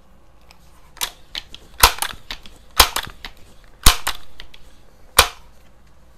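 Crosman 2100 Classic multi-pump air rifle being loaded and charged: about five sharp metallic clacks roughly a second apart from working the bolt and the pump lever, some with a short rush of air after them.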